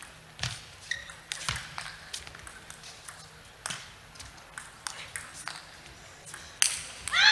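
Table tennis ball clicking off rackets and the table during a long defensive chopping rally, hits coming every half second to a second. Near the end comes a louder hit, then crowd noise starts to rise.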